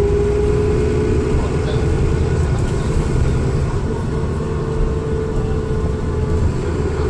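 Dennis Trident II double-decker bus under way, heard from on board: a deep engine rumble with a steady, prominent whine on top, which the recordist takes for turbo whine. The whine holds near one pitch, sagging slightly midway.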